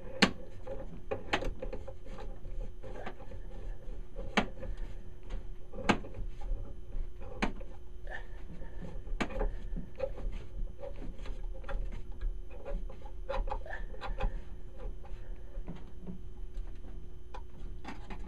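Irregular clicks, knocks and scraping of a SharkBite water hammer arrestor being handled and screwed by hand onto a washing-machine supply valve, with a few sharper knocks, the loudest about six seconds in.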